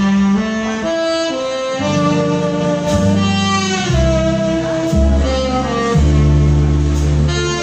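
Live jazz ballad: a saxophone plays a slow, sustained melody with vibrato on its held notes, over low double bass notes.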